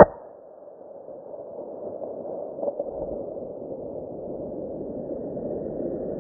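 A single .243 rifle shot right at the start, heard through a scope camera's microphone, followed by a steady hiss that slowly grows louder.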